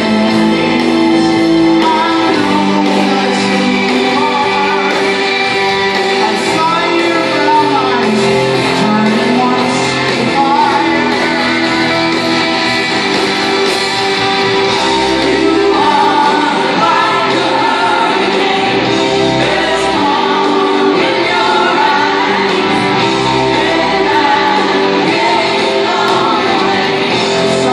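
Live rock band of electric guitars and drums playing loud in a large hall, recorded from the audience, with a singing voice over the band.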